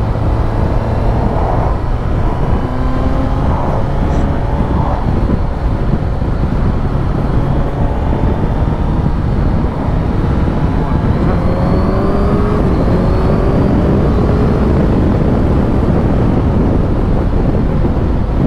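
Suzuki GSX-S1000GT's inline-four engine revving up and pulling through the gears at riding speed, several rising sweeps in pitch, heard from inside a motorcycle helmet. Heavy wind noise rumbles underneath, picked up by a cheek-pad microphone that points downwards.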